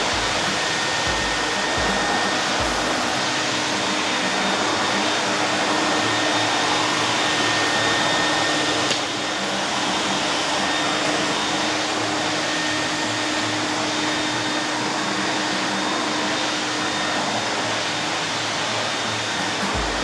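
Krisbow Pro FPVCW30 wet-and-dry vacuum cleaner running steadily: a constant rush of air through the floor nozzle with a faint steady whine as it sucks up metal powder. The level dips slightly about nine seconds in.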